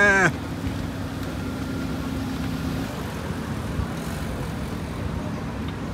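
A car on the move: a steady low engine and road rumble. A short voice-like call is heard right at the start.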